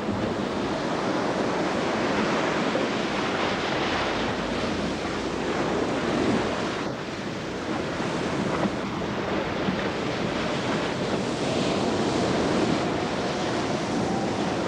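Storm wind and rough sea waves, with the wind buffeting the microphone.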